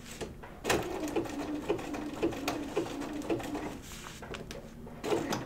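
Bernina sewing machine stitching slowly, about two stitches a second with a steady motor hum, as it zigzags yarn down along the edge of a fabric petal.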